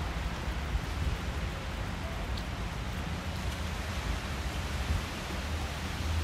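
Wet snow falling on a wet city street: a steady hiss of precipitation over a low, uneven rumble.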